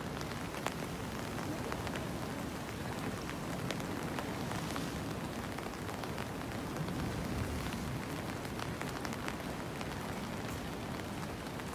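Steady rain noise with scattered sharp ticks of drops landing close by, over the wash of small waves breaking on shoreline rocks.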